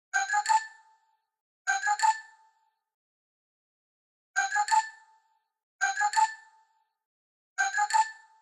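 Apple phone ringtone: a short bell-like chime of a few quick rising notes, played five times with uneven gaps between.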